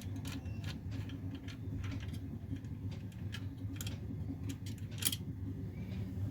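Light clicks and taps of small metal parts and screws being handled inside an opened desktop PC case, one sharper click about five seconds in, over a steady low hum.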